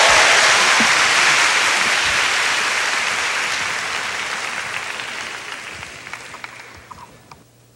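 A large audience applauding, the applause dying away steadily until only a few scattered claps remain near the end.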